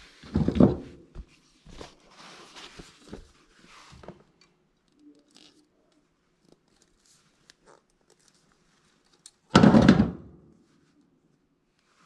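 Close handling noise of hand work on wiring: rustles and small clicks of wire strippers and wires being handled, with two loud, brief rubbing bumps close to the microphone, about half a second in and near the end.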